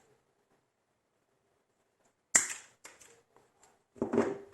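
Gerber Suspension NXT multitool being handled: a sharp metal click about two and a half seconds in, a few lighter clicks after it, and a louder clack near the end.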